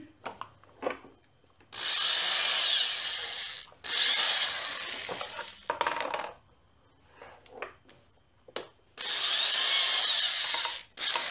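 Corded electric drill boring holes through a plastic filament spool: two runs of about two seconds back to back, then a third after a pause, each with a whine that rises and falls in pitch. Small clicks and taps in between.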